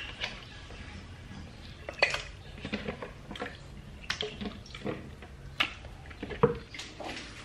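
Raw chicken pieces being washed by hand in a plastic bowl of water: water sloshing and dripping, with scattered knocks of the plastic and glass bowls against each other and the cutting board.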